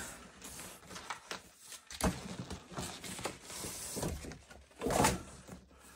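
Cardboard carton being opened and handled: scattered rustles, scrapes and light knocks of cardboard, with a louder scrape about five seconds in.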